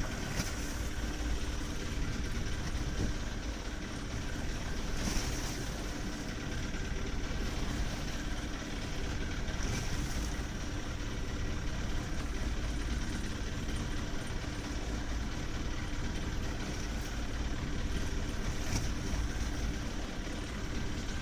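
A fishing boat's engine running steadily at idle, with a few brief sharp knocks or splashes over it.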